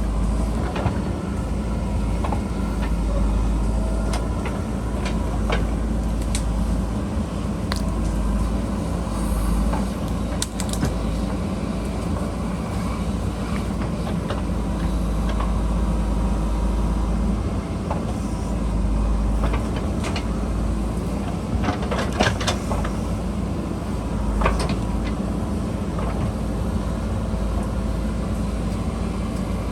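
JCB backhoe loader's diesel engine running steadily under load, with scattered sharp knocks and clanks, a quick cluster of them a little past the middle.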